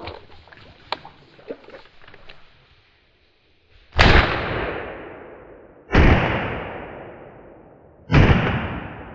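Three shotgun blasts about two seconds apart, each with a long echoing tail. Before them, light rustling and clicks.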